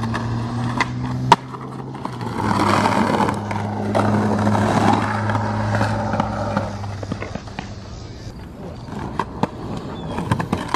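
Skateboard wheels rolling on concrete with a steady low hum and rumble, broken by sharp clacks of the board about a second in and several more near the end.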